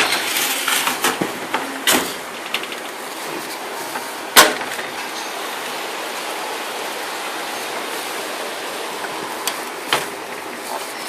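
Steady hiss of falling rain, with a few sharp knocks in the first two seconds and a loud single knock about four and a half seconds in.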